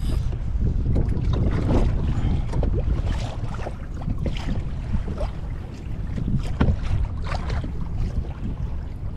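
Wind buffeting the microphone in a steady low rumble, with small waves slapping and splashing irregularly against a kayak's hull.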